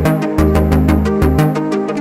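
Electronic background music with a quick, steady drum beat over synthesizer and bass notes.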